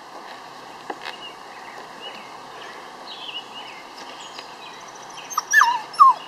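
Portuguese water dog puppy whining: faint high whimpers, then a few loud, high cries that fall in pitch near the end.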